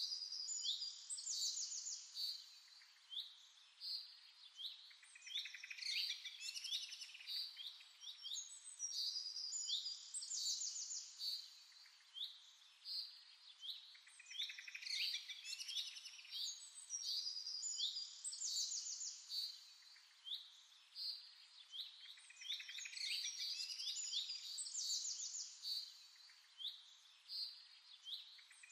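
Birds singing: high chirping phrases that repeat about every four seconds.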